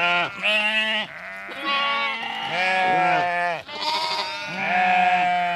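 Sheep bleating: a run of about seven loud baas, some overlapping at different pitches from more than one animal.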